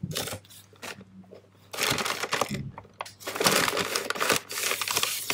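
Paper takeaway packaging rustling and crinkling as it is handled, with a few light clicks first and then about three and a half seconds of dense rustling.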